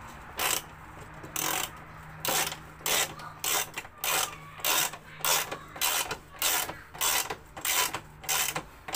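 Hand ratchet driving a screw in, a short burst of clicking on each stroke, about one and a half strokes a second.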